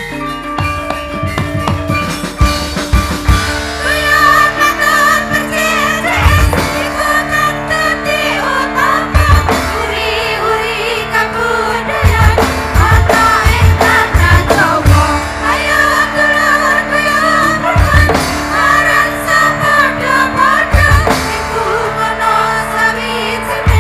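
Live campursari music played over a sound system: gamelan pot gongs, drum hits and steady low notes, joined about four seconds in by a group of women singing together with vibrato.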